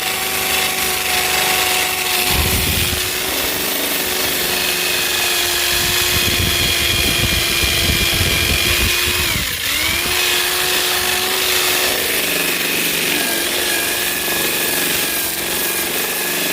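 Old Craftsman 3/8-inch electric sander fitted with a grinding wheel, its motor whining steadily while the wheel grinds rust off a steel anchor. A rough grinding noise runs from about two seconds in to about nine and a half, where the motor's pitch drops sharply and climbs back.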